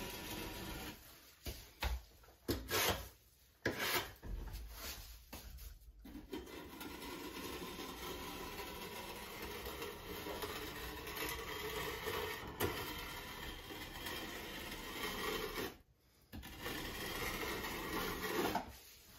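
A small hand scraper scraping and rubbing along the edge of a glass tile mosaic, cleaning excess thinset off the border. Short separate strokes come first, then long stretches of steady rubbing with one brief pause near the end.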